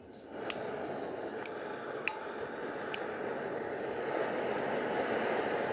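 Primus Kinjia gas camping stove being lit: a few sharp clicks as the knobs are turned, then the gas burners running with a steady rushing hiss that grows a little louder. The burner noise is really loud for a camping stove.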